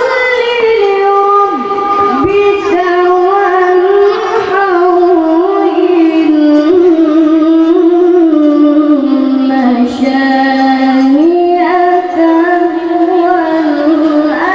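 A boy qari chanting Quran recitation (tilawah) in one long melodic phrase of held, ornamented notes. The voice breaks off briefly about ten seconds in for a breath, then goes on a step higher in pitch.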